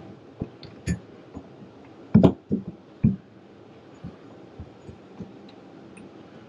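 Scattered clicks and knocks from hands and a small tool working on a faucet mounted in a stainless-steel sink, loudest in a cluster about two seconds in, with another knock about a second later and fainter ticks after that.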